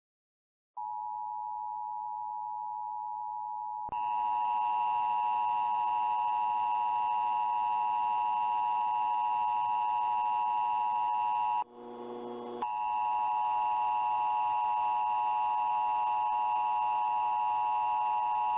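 Emergency Alert System attention signal: a steady two-tone electronic alert tone. It starts quietly about a second in, turns much louder and harsher about four seconds in, breaks briefly into lower tones around the middle, then resumes.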